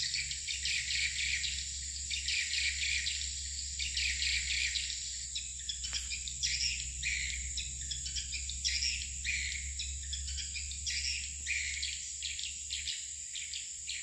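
Swiftlet calls: chirpy twittering bursts repeating nearly twice a second, over a steady high-pitched tone and a low rumble.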